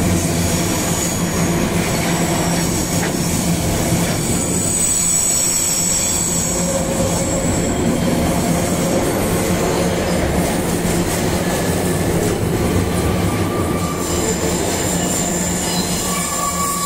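Freight train's empty flatcars rolling past: a steady rumble and clatter of steel wheels on rail. Thin high squeals from the wheels come in about four seconds in and again near the end.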